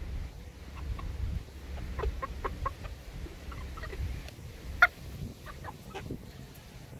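Chickens clucking, many short scattered clucks from a flock of hens crowded close, with one louder, sharper call about five seconds in.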